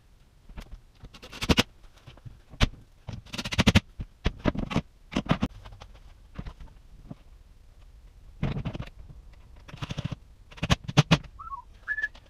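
Knocks, clicks and short rattling bursts of hand work on a wall cabinet with a cordless drill. Near the end a man starts whistling a tune.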